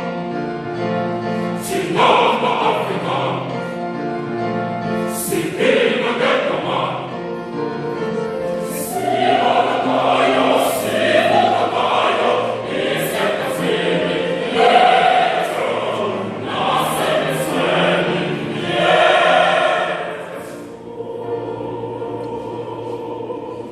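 Choir singing in harmony, many voices holding chords with crisp sibilant consonants. About three-quarters of the way through it falls to a softer held chord that stops at the end.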